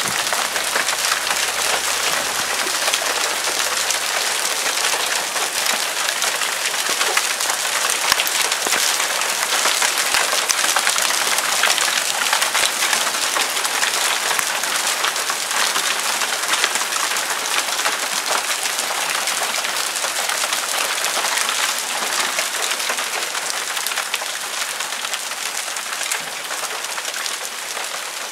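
Marble-sized hailstones pelting down in a dense, steady clatter of countless small impacts on paving and garden, easing slightly near the end.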